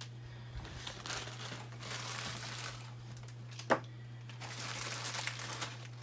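A bag crinkling and rustling in stretches as parts are pulled out of it by hand, with one sharp click about midway.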